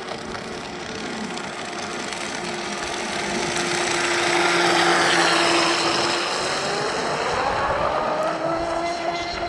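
ProBoat Blackjack 29 RC catamaran speedboat running at speed: the high whine of its 1800kv brushless motor over the hiss of the hull and spray on the water. The sound swells to its loudest about halfway through as the boat passes, and the whine climbs in pitch in the last few seconds.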